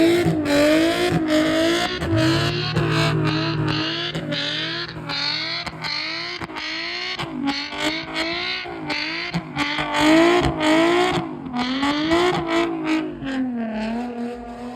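Car engine held at high revs, the revs rising and falling over and over, with sharp cracks and pops throughout, typical of a car being driven hard or revved at a car meet.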